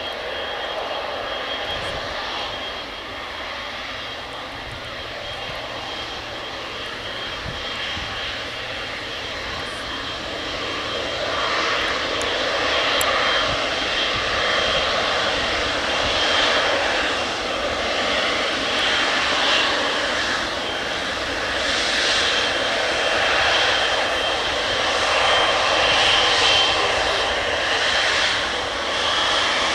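Jet engines of a Boeing 777F freighter (GE90 turbofans) running as a steady rush with a thin high whine, growing louder from about eleven seconds in.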